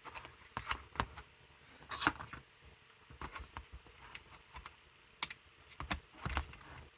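Screwdriver prying at the plastic clamshell housing of a car door latch, making scattered sharp clicks and snaps of plastic tabs and metal on plastic at irregular intervals, the loudest about two seconds in.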